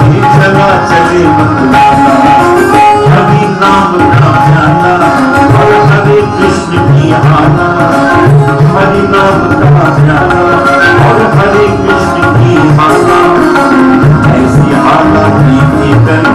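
Devotional music played without singing: tabla drumming keeps a steady rhythm under a melody line.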